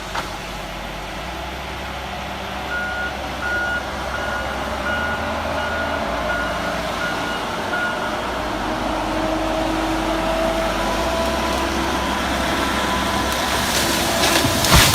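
Heavy machine running steadily while a reversing alarm beeps about twice a second for several seconds; later a steady whine rises slightly in pitch.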